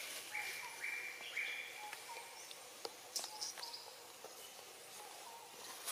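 Forest ambience: a series of four short, flat, high calls in the first two seconds, then a few thinner, higher chirps, with scattered light clicks and rustles.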